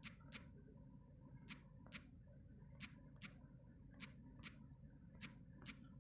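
Typing on a smartphone's on-screen keyboard: short, sharp taps in pairs, about one pair every second, ten clicks in all, over a faint low hum.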